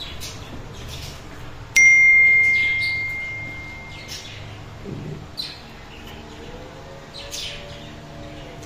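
A single bell-like ding about two seconds in, struck sharply and ringing away over about two seconds, from the notification-bell sound effect of an on-screen subscribe button. Faint short bird chirps come and go in the background.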